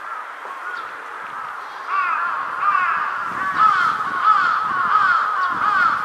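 Jungle crow (large-billed crow) cawing: a quick run of short caws, faint at first and much louder from about two seconds in.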